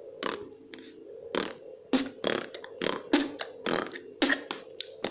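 A boy beatboxing: a run of short mouth-percussion hits, about three a second, coming a little quicker after about two seconds.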